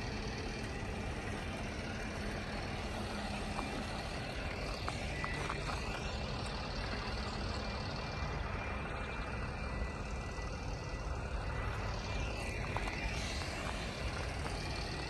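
Steady low rumble of heavy vehicle engines, with two sweeping swells about five and twelve seconds in.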